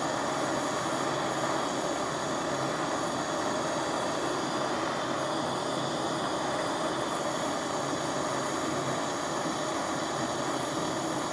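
Gas soldering torch flame running with a steady roar, heating a large silver buckle up to soldering temperature.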